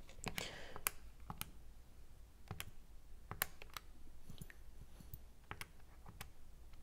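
Calculator keys being pressed: about a dozen light, separate clicks at uneven intervals as a number is keyed in.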